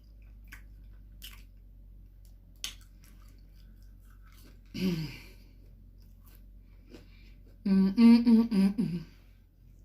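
A woman eating with faint chewing and mouth clicks, a short falling "mm" about halfway through, then a brief hummed phrase near the end, the loudest sound.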